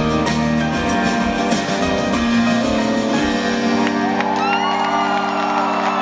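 Live rock band, with acoustic and electric guitars and drums, playing the last bars of a song; about four seconds in the drums stop and a final chord rings on while the crowd starts whooping and shouting.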